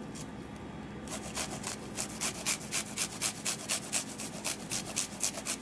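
Garlic being grated on a metal hand grater: quick, even rasping strokes, about four or five a second, starting about a second in.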